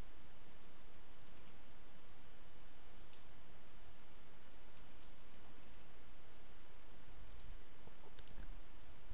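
Scattered computer mouse clicks, a few single and a few in quick pairs, over a steady background hiss.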